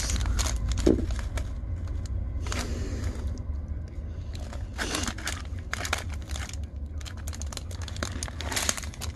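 A strip of small clear plastic bags of diamond painting drills crinkling as it is handled, in irregular bursts over a steady low hum.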